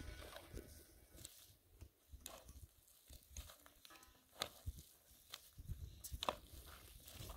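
Steel shovel digging into dry, stony soil: soft scrapes and gritty crunches as the blade bites and lifts earth, about once a second.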